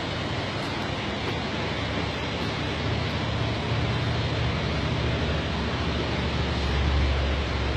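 A steady rushing noise with a low rumble underneath that grows louder from about three seconds in and is strongest near the end.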